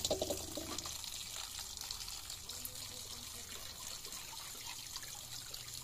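A thin stream of tap water trickling from the spigot of a plastic water drum into a bowl of boiled noodles as they are rinsed in cold water by hand.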